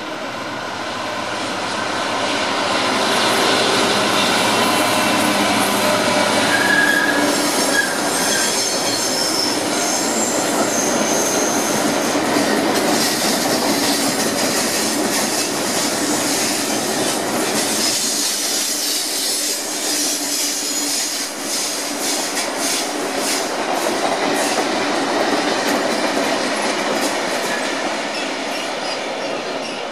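Freight train of loaded stone wagons hauled by a Class 66 diesel locomotive rolling past. The wagon wheels clatter over the pointwork and squeal in thin high tones, the squeal strongest in the first third.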